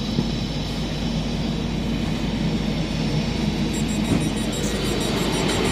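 DBAG Class 423 electric multiple unit running on the line, heard from inside the passenger car: a steady low rumble of running gear and traction motors with a faint high whine, growing slightly louder near the end.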